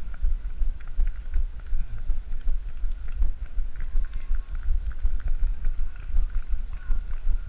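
Wind buffeting a body-worn camera's microphone as a runner runs, with a low rumble that pulses in a regular rhythm of the runner's strides and footfalls.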